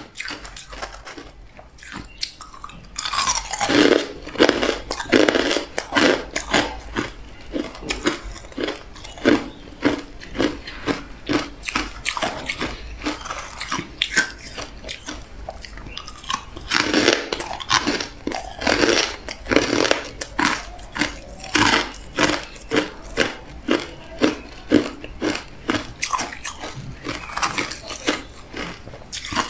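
Crushed ice being bitten and chewed up close: a dense run of sharp crunches, with two loudest spells of biting, one a few seconds in and one just past the middle, and steadier chewing crunches between.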